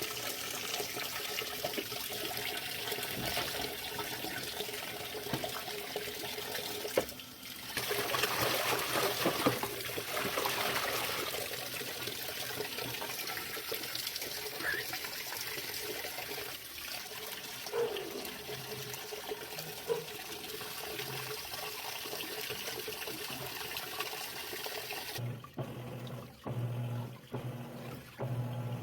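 Water splashing and trickling during washing machine cleaning, louder for a few seconds about eight seconds in. Near the end the water noise stops and a low hum with short breaks is left.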